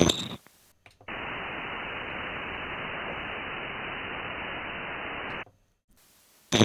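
Steady static hiss from an HF ham radio receiver through its speaker, cut off above the voice band. It comes on abruptly about a second in and cuts off just as abruptly about a second before the end.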